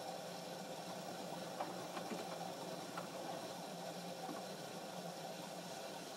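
Washing machine running with a steady mechanical hum, with a few faint clicks partway through.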